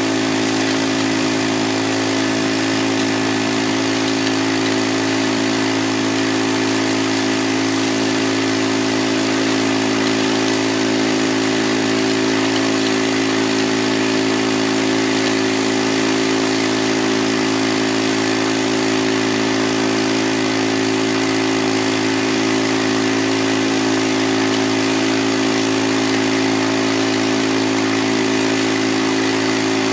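Small gasoline engine driving the water pump of a floating gold suction dredge, running steadily at one speed, over the rush of fast creek water.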